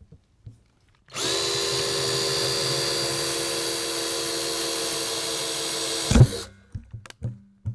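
Cordless drill boring a vent hole through the plastic top of a rain barrel: a steady motor whine starts about a second in and runs for about five seconds, then ends with a sharp knock, followed by a few light knocks.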